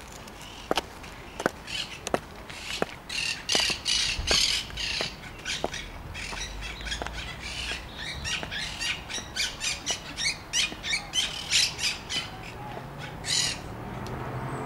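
Caged aviary birds squawking in rapid, repeated harsh calls that grow dense from a few seconds in. Under them, high-heeled footsteps click on paving about every three-quarters of a second through the first half.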